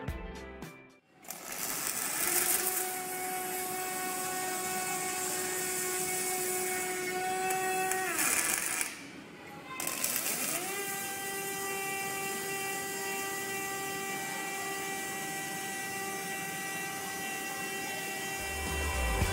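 Robot arc welding steel: the welding arc's steady hiss with a level mechanical whine from the welding equipment. About eight seconds in the whine winds down and the hiss stops as the arc breaks off. About a second later both start again, the whine gliding back up to pitch.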